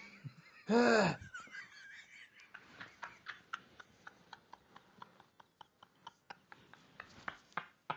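A person's mouth noises close to the microphone: one short voiced call that rises and falls in pitch about a second in, then a long run of quick mouth clicks, about three or four a second, louder near the end.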